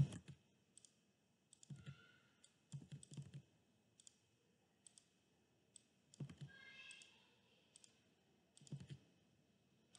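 Faint computer mouse clicks and keyboard taps, in small scattered clusters.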